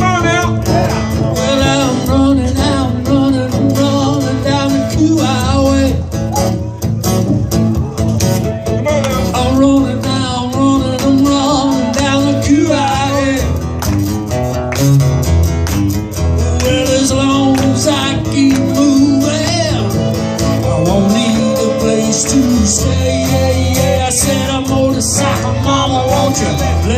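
Live acoustic band playing: two acoustic guitars strummed with a steady beat and a wavering sung or lead melody line over them.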